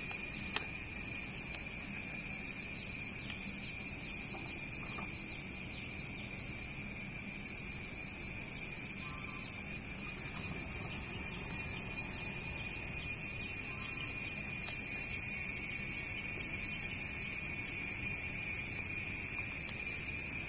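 Jet engines of distant taxiing airliners, including an Airbus A320, giving off a steady high-pitched whine at low taxi power that swells in the second half.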